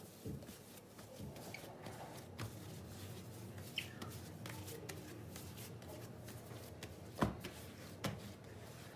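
Hands working a ball of soft yeasted bread dough on a floured stone countertop: faint rustling, patting and pressing, with small taps and one sharp knock about seven seconds in.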